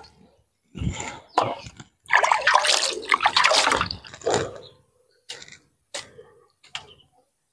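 Water splashing and pouring as raw chicken is washed by hand. It comes in irregular bursts, the longest and loudest about two to four seconds in, with a few short knocks between them.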